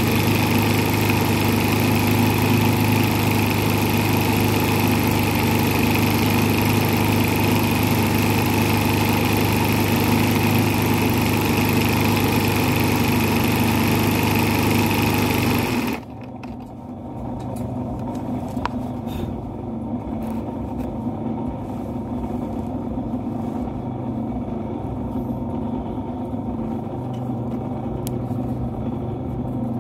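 Zigzag embroidery sewing machine running steadily at speed as it stitches. About halfway through it stops abruptly, and a quieter steady hum carries on.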